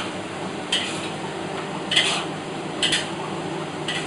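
A metal frying ladle stirs a stir-fry in a wok, scraping across the wok four times about a second apart, over a steady hiss of frying.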